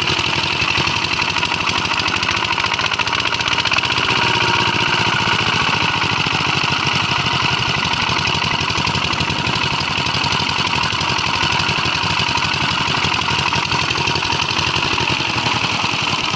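8 HP single-cylinder diesel water-pump engine running steadily at speed, its rapid even firing beat unbroken, while the pump's outlet pours a heavy stream of water onto the ground.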